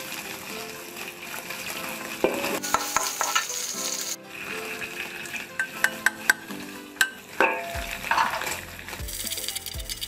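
Diced pork sizzling in a black wok as a metal spatula stirs and scrapes it, with sharp clinks of metal on the wok now and then, some as a ladle of minced garlic is tipped in about six seconds in.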